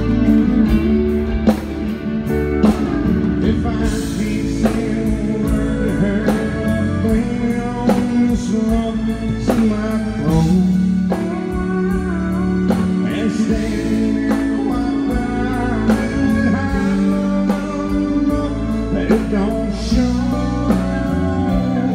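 A country band playing live: an acoustic guitar and electric guitars over bass, with a steady beat and a sung melody line.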